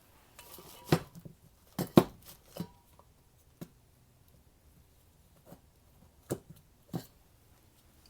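Handling noises: a series of sharp clicks and knocks as small hard objects are picked up and set down. Three come close together about a second in, one of them the loudest, then single ones follow about three and a half seconds in and twice more near the end.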